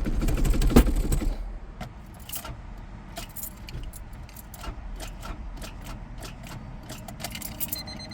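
Keys jangling with many small clicks and rattles of things being handled in the car, after a low rumble and a knock in the first second. An electronic warning chime beeps briefly near the end.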